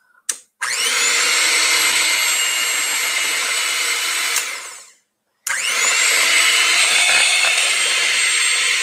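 Electric hand mixer running with its beaters in sweetened condensed milk and peanut butter: a click, then the motor spins up to a steady high whine. It winds down about halfway and starts up again moments later.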